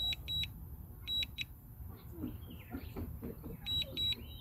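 Drone remote controller sounding its warning alarm: short high double beeps about once a second, pausing briefly in the middle. It signals a weak or lost connection to the DJI Mini 2 while the drone is returning to home. Low wind rumble sits underneath.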